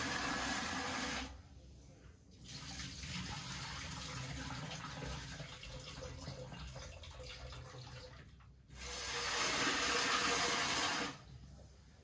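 Kitchen tap running into a sink while soaked beans and maize are rinsed: the flow stops about a second in, quieter splashing follows, then the tap runs hard again for about two seconds and shuts off near the end.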